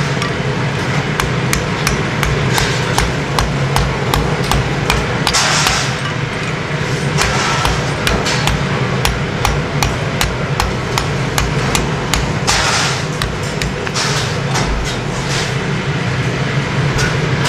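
Hand hammer striking a sheet-steel shovel blade on a steel block anvil as it is formed: a fast run of sharp metallic blows, about three a second, that stops near the end. A steady low hum runs underneath.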